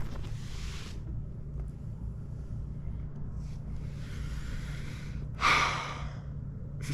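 A man breathing out heavily: a soft breath at the start and a loud sigh about five and a half seconds in, over a steady low hum.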